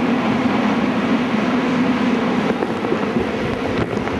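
Hurricane-force wind blowing hard, a loud continuous rush that buffets the microphone, with a steady low hum underneath.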